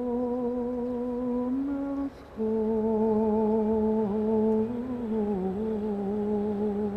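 A single voice humming a slow, wordless tune in long held notes, with a brief break about two seconds in and a step down in pitch near five seconds.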